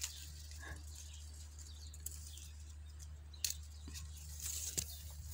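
Quiet outdoor ambience with a low steady rumble, a short faint bird chirp about a second in, and one sharp click a little past the middle as pear branches and fruit are handled.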